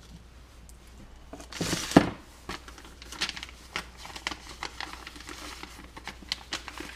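A single sharp knock about two seconds in as something is set down on the workbench, then the light, irregular crinkling of a packet being opened and handled.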